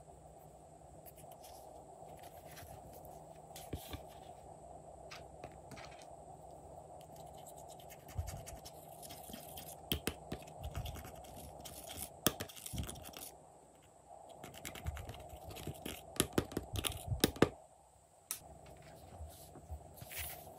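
A thin metal tool scraping and picking pressed eyeshadow out of a makeup palette: a run of scratches and sharp clicks, busiest from about eight seconds in.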